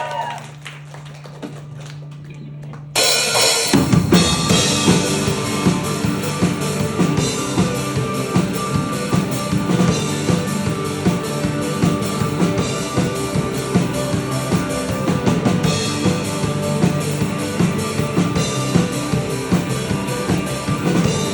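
Live rock band music. A low steady tone is held for about three seconds, then the full band comes in suddenly with drum kit, bass and other instruments playing a steady beat.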